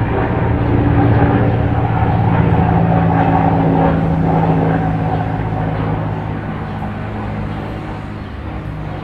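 Hubsan Zino quadcopter's motors and propellers humming steadily in several pitches that drift slightly, growing gradually quieter over the second half.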